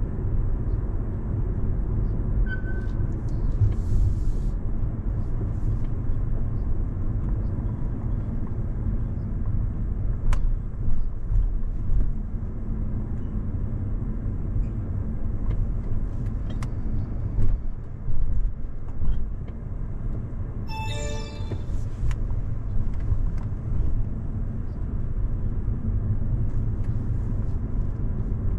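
A car driving, with a steady low rumble of road and engine noise. About three-quarters of the way through, a short horn-like tone sounds once.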